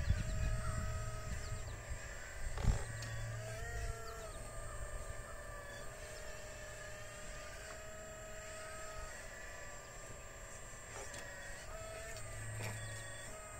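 Radio-controlled model excavator's electric motors whining steadily as it digs, the pitch stepping up and down every second or two as the boom and bucket move. A single knock about two and a half seconds in.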